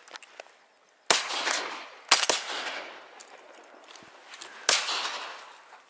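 Shotguns firing at flying ducks: one shot about a second in, two in quick succession a second later, and a last one near the end, each trailing off in a fading echo.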